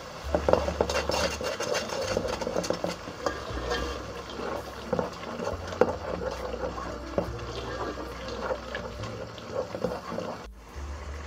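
A spoon stirring thick tomato sauce in a metal pot, with irregular scrapes and knocks against the pot's sides and bottom. It cuts off suddenly about ten and a half seconds in.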